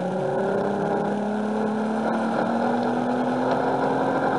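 Recorded motorboat engine sound effect from a coin-operated boat kiddie ride's speaker, running steadily with its pitch slowly rising.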